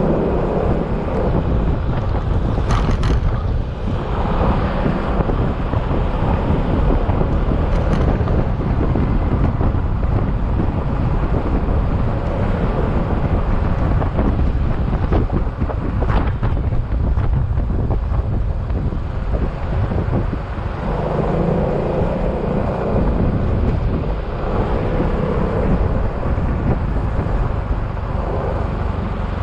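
Yamaha XMAX single-cylinder scooter running at road speed, its engine drone mixed with heavy wind buffeting on the microphone and road noise.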